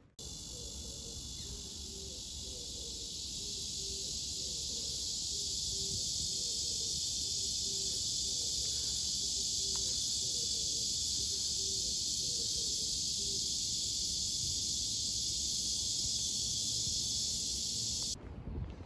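A dense, steady, high-pitched buzzing chorus of insects that cuts in abruptly at the start and cuts off abruptly near the end.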